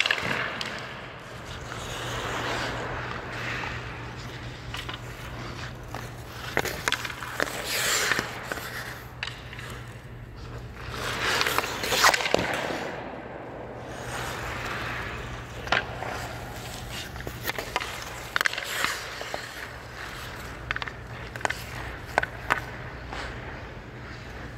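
Hockey skate blades scraping and carving on ice in repeated swells, the loudest about halfway through as skates pass close by, with sharp clacks of stick and puck scattered throughout. A steady low hum lies underneath.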